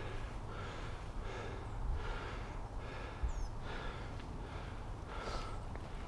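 A person breathing hard in quick, regular breaths, roughly one a second, as a mountain biker does on a steep climb.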